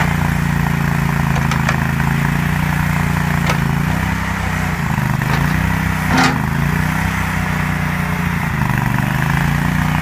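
The Vanguard gasoline engine of a portable mini backhoe runs steadily, its pitch dipping briefly a few times as it takes load, with a few sharp knocks along the way.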